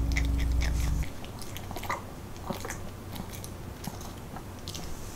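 A Pomeranian crunching dry kibble from a ceramic bowl: a run of short, sharp crunches and clicks as it bites and chews. Background music stops about a second in.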